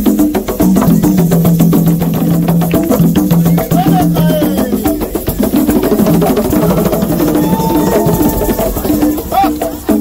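Fast traditional Congolese drumming on tall hand drums, with a shaker-like rattle and a low melodic line in steady stepped notes.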